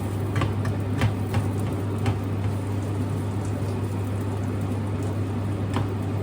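A steady low hum with a few sharp clicks and light knocks scattered through it, about four of them.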